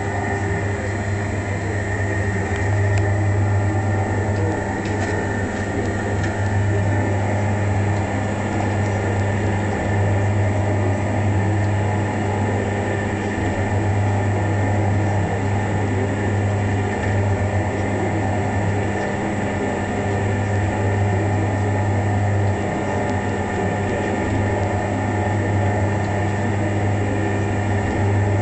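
Motor-driven telescope-mirror polishing machine running steadily: a mechanical hum with a low drone that swells and eases every few seconds as it works a 10-inch mirror.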